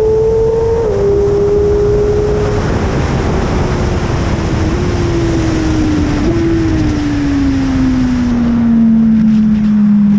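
BMW S1000RR inline-four engine at speed on track. It climbs in revs, snaps down at an upshift about a second in, then runs down steadily as the bike slows, with two small upward jumps on the way down, under a heavy rush of wind noise.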